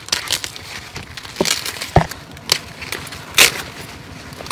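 Corn leaves and stalks rustling and crackling as young ears of corn are snapped off by hand, with a few sharp snaps, the loudest about three and a half seconds in.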